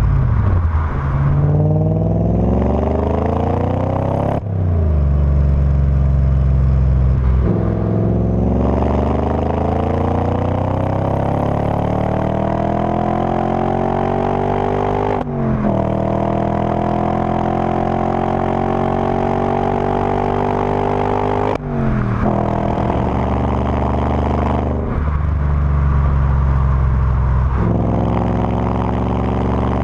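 Audi S4's 4.2-litre V8 through a Milltek Sport exhaust, accelerating hard through the gears: the engine note climbs steadily in pitch and drops back sharply at each of several upshifts.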